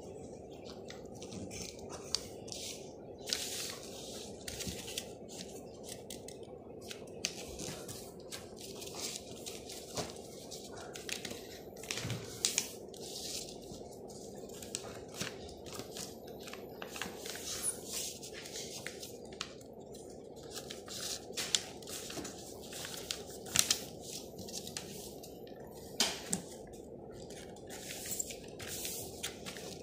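A sheet of paper being folded and creased by hand: irregular rustles and sharp crinkles as the folds are pressed down, over a steady low hum.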